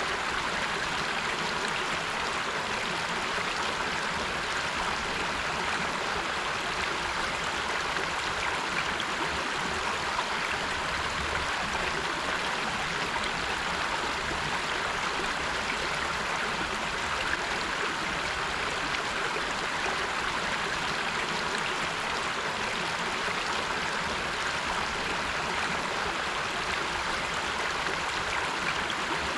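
River water flowing over rocks: a steady, even rush.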